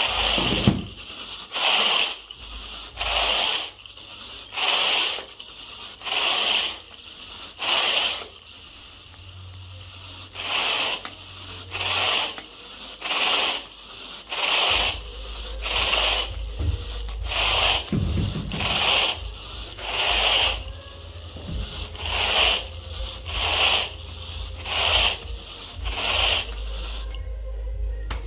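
Carpet grooming rake dragged through the carpet pile in repeated rubbing strokes, about one a second, with a short pause about a third of the way through. This is the grooming pass of a low-moisture carpet cleaning.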